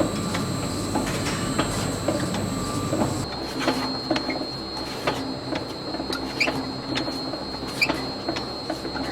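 Mill or bakery workshop machinery running with a steady hum and irregular clicks and knocks. About three seconds in the sound cuts to another steady mechanical noise with a thin high tone and sharper ticks.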